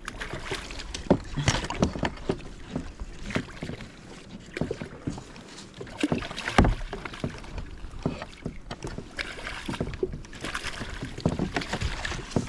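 Irregular knocks, clatters and splashing on a kayak as a hooked fish is brought in and landed.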